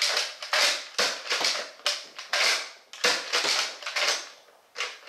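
Nerf Retaliator dart blaster being primed and fired again and again: a fast string of sharp plastic clacks and snaps, roughly two to three a second, with a short lull about four seconds in before it starts again.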